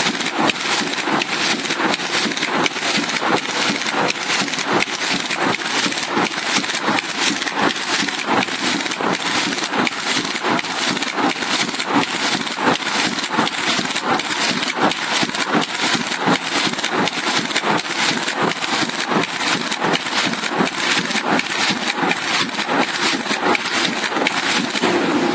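Rotary die cutter running and cutting corrugated cardboard sheets, a fast, regular clatter of sharp strikes over steady machine noise, with the cardboard crackling as the cut sheets are pulled apart.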